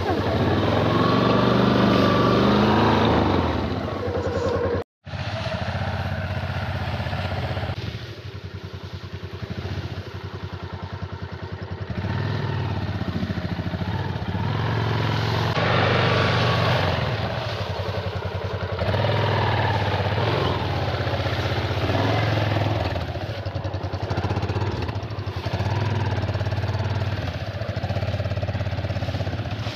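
A 250 cc single-cylinder motorcycle engine revving up and down as the bike is worked slowly through mud and over branches. The sound breaks off completely for a moment about five seconds in.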